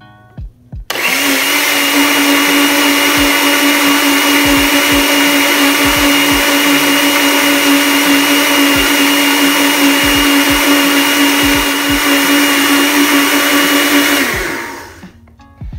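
Electric countertop blender switched on about a second in, its motor running at one steady high speed as it blends banana, oats and eggs into pancake batter. It is switched off near the end and spins down over about a second.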